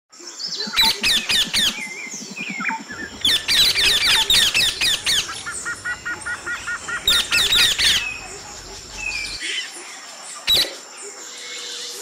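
Parakeets calling in bouts of rapid, harsh screeches, three bouts in the first eight seconds, with a quicker run of evenly repeated short calls between the second and third. After that only a few scattered calls and a couple of sharp clicks are heard.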